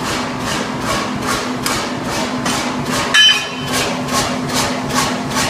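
A single loud metallic clang about three seconds in, with a short ringing tail, as steel is struck at a 2 cwt power hammer. Beneath it runs background music with a steady beat of about three ticks a second over a steady hum.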